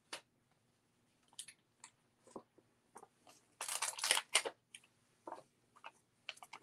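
Crinkling of a plastic-backed sheet of adhesive foam dimensionals as it is picked up and handled, loudest about four seconds in, with scattered light clicks and taps before and after.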